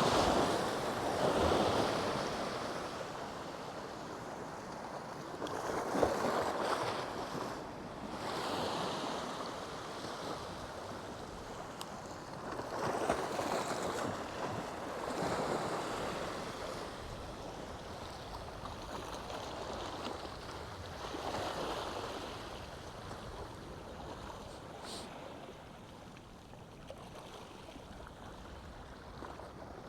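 Small waves washing in and out, swelling and fading every few seconds, with some wind on the microphone. A brief knock about six seconds in.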